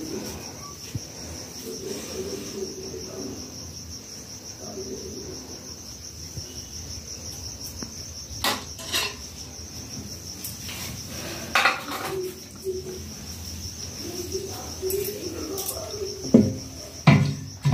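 A cricket trilling steadily and high, with a few clinks of earthenware bowls being handled and louder knocks near the end as a clay bowl is set on a wooden shelf.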